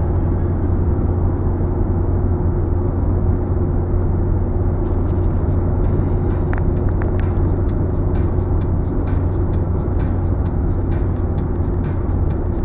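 Car interior noise at highway speed: a steady low rumble of tyres and engine. Faint, irregular ticks join in from about five seconds in.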